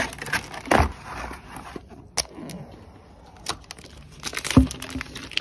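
Unboxing handling noise: cardboard flaps of a shipping box and a clear plastic wrap rustling and crinkling as a phone's retail box is pulled out and turned over, with scattered sharp clicks. A dull thump about four and a half seconds in is the loudest sound.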